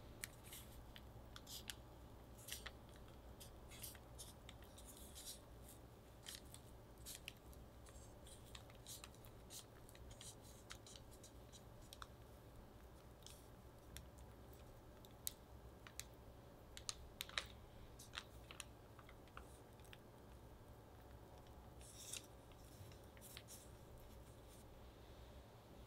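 Faint, scattered rustles and ticks of parchment paper under the fingers as soft cookie dough triangles are lifted and rolled up into croissant shapes.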